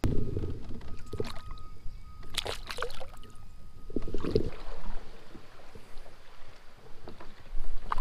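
A smallmouth bass released by hand into the river beside a kayak: a few brief splashes and water sloshing against the hull, with handling noise.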